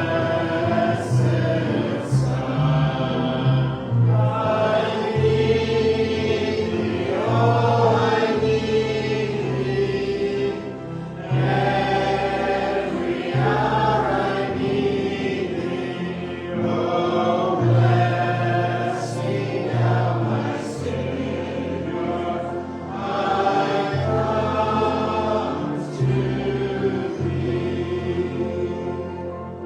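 A group of voices singing a gospel hymn together, over sustained low instrumental bass notes.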